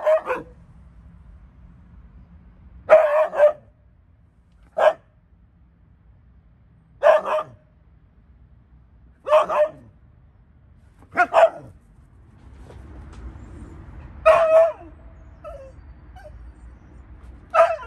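A husky barking: about eight short barks, some doubled, spaced roughly two seconds apart.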